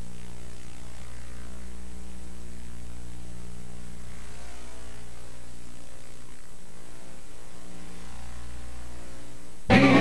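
Steady electrical mains hum with a low hiss from an unrecorded gap in a VHS tape, where the programme's sound has dropped out. Loud music cuts back in abruptly near the end.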